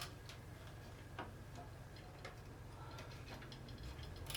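Faint, scattered small clicks and ticks of a snowblower's plastic primer-bulb fitting and fuel line being worked loose by hand, over a low steady hum.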